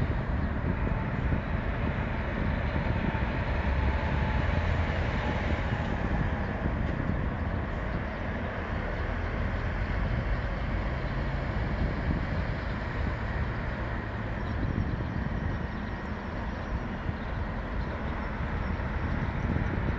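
Steady low rumble with an even hiss, no distinct events.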